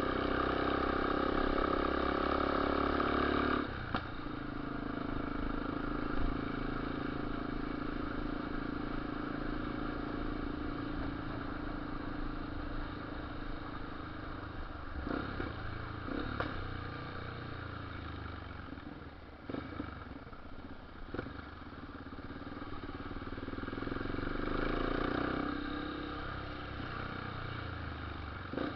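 Yamaha Lander 250 single-cylinder engine with a ProTork 788 aftermarket exhaust, running under way. The revs drop about four seconds in and build again near the end. Several short sharp pops between about halfway and two-thirds through are the exhaust popping on gear changes, which the owner puts down to the aftermarket exhaust on this fuel-injected bike.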